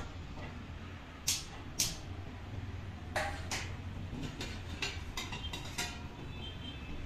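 Two sharp clicks as a gas stove burner is lit, then a run of metallic clinks and taps of a steel ladle and lid against stainless-steel pots, over a low steady hum.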